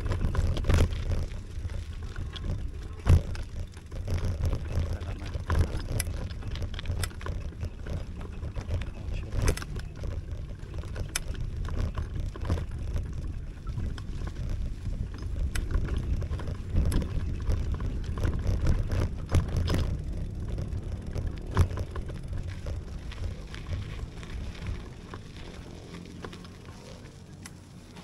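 Wind rumbling on the microphone, with scattered knocks and rattles from a folding bicycle being ridden over a rough track; it quietens over the last few seconds.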